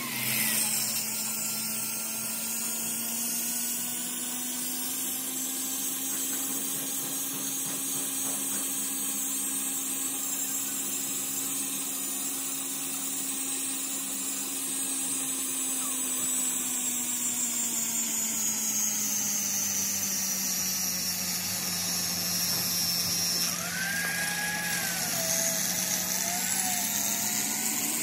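Hand-held angle grinder running and grinding the steel surface of an excavator bucket pin as it turns in a lathe. The hum and high whine are steady, sagging slightly in pitch past the middle and coming back up. A few short squealing tones come in near the end.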